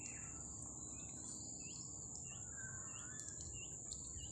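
Steady high-pitched drone of insects, with short chirps repeating about three times a second through the second half.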